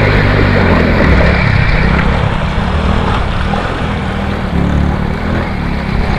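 A vehicle engine running steadily under a constant rushing noise, its low hum rising and falling slightly.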